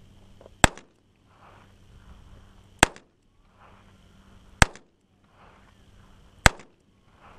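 H&R Model 922 .22 revolver firing four shots, evenly spaced about two seconds apart.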